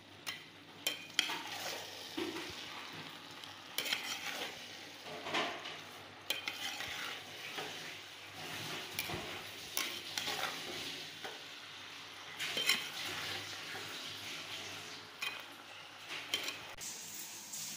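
Potato pieces and sliced onions sizzling in hot oil as a perforated metal spoon stirs them, knocking and scraping against the pot every second or two.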